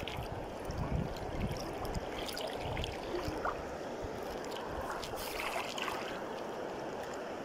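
Steady rush of river water, with a few faint ticks scattered through it.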